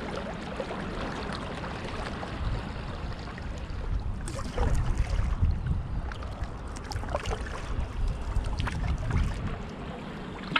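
Kayak paddle strokes splashing and dripping water, over a low rumble of wind on the microphone.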